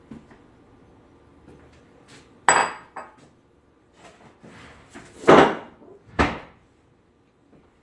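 Kitchen clatter: a dish clinks with a short ring about two and a half seconds in, then knocks and clatter from rummaging in a low kitchen cabinet, loudest about five seconds in, with a sharp knock soon after.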